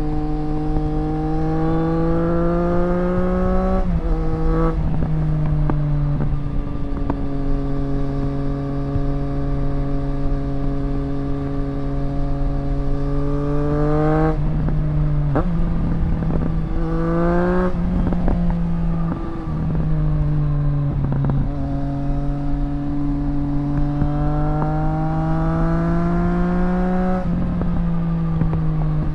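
2024 Triumph Street Triple RS's 765 cc inline-three running through a Zard titanium exhaust while riding. The engine note climbs steadily under throttle and drops sharply four times: about four seconds in, near 14 and 18 seconds, and near the end.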